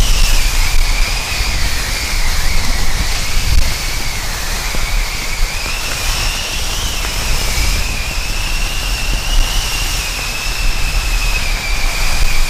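Camera drone's propellers whining at a steady high pitch that wavers slowly up and down, over a constant low rumbling noise.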